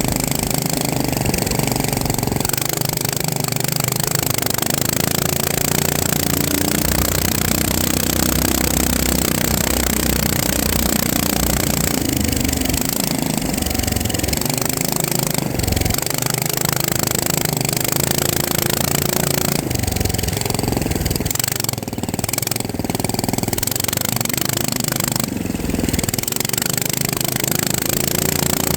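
FPV racing drone's motors and propellers running in flight, a dense buzzing whine whose pitch rises and falls with the throttle.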